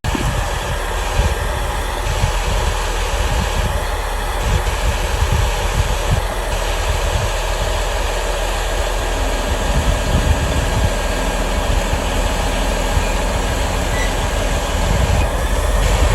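Self-propelled sugar beet harvester running in the field: a loud, steady machine drone with a deep rumble.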